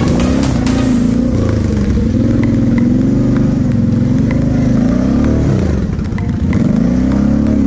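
Kawasaki KFX 700 V-Force quad's V-twin engine running under throttle, its revs rising and falling over the bumps, with a dip about five and a half seconds in and a pickup again near the end.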